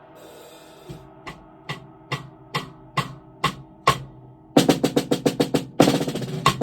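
Acoustic drum kit being sound-checked: after a fading cymbal wash, a single drum is struck about twice a second, eight even hits, then the playing breaks into fast rolls and fills on snare and drums.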